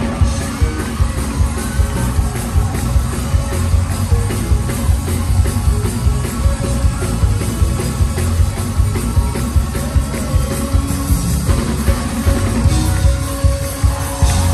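Live gospel band playing an up-tempo groove on drum kit, bass, electric guitars and keyboards through a concert PA, with a steady driving beat.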